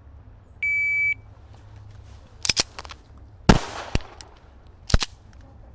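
A shot timer's beep, one steady electronic tone of about half a second: the start signal. About two seconds later a handgun fires several shots in quick succession.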